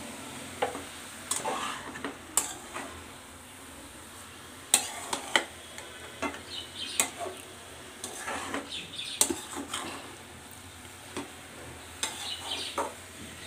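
Metal spatula stirring and scraping fenugreek leaves and potatoes around a metal kadai, with clusters of clinks and scrapes against the pan every second or two.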